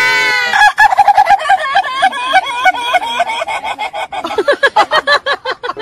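A high-pitched shriek that breaks off about half a second in, followed by a long run of rapid, high-pitched cackling laughter, several short bursts a second, with a lower laugh joining near the end.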